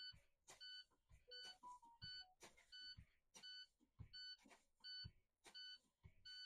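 Low air pressure warning buzzer in an International semi-truck cab, beeping steadily about three times every two seconds, with soft thumps in between. The beeping means the air brake pressure has fallen below the warning point (it came on at 60 PSI) as the brakes are pumped down.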